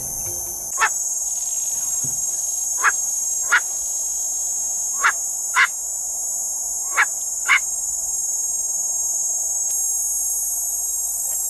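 Northern black korhaan (white-quilled bustard) giving short, harsh calls, seven in all and mostly in pairs, over a steady high buzz of insects.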